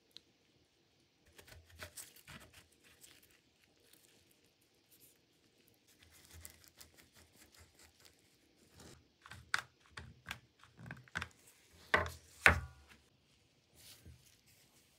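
Hand work at a bench: irregular rustling, scraping and light knocks. The knocks grow busier in the second half and are loudest about twelve seconds in, where a sharper knock leaves a short metallic ring.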